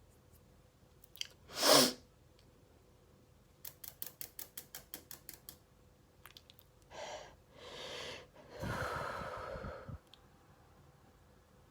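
A person sneezing once, short and loud, about two seconds in, during an allergy sneezing fit. A quick run of about a dozen small clicks follows, then heavy noisy breaths, the longest near the end.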